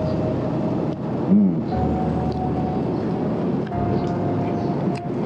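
Steady city traffic noise, a dense low rumble of passing engines, with a faint steady tone that shifts in pitch a few times. A brief rising-and-falling hum comes about a second and a half in.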